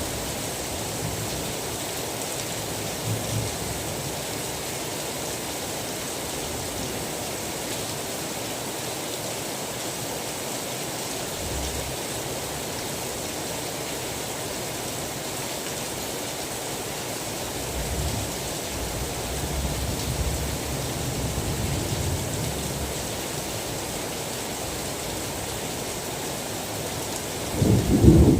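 Steady rain with low rolls of thunder about two-thirds of the way in, and a louder thunderclap breaking just before the end.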